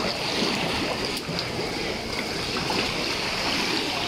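Steady rush of moving water with small splashes and sloshing.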